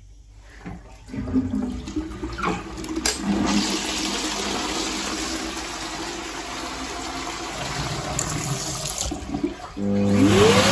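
Chain-pull toilet cistern flushing: water rushes for about eight seconds, then dies away. Near the end a phs Airstream Vitesse hand dryer starts up, its motor whine rising quickly in pitch and then holding steady.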